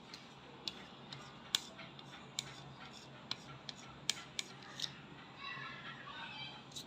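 Soldering iron tip being scraped clean: faint, irregular sharp clicks and scrapes, about a dozen of them.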